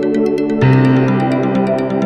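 Background music: a synthesizer-led electronic track with a quick, even ticking beat. The chord changes about half a second in.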